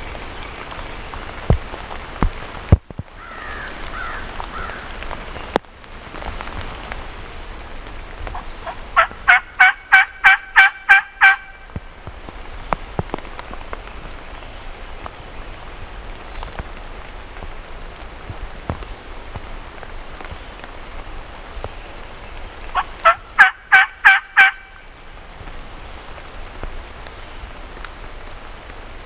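Two runs of turkey yelps, the first about nine notes, the second about seven, at roughly three to four notes a second, over steady rain hiss. A few sharp clicks come in the first few seconds.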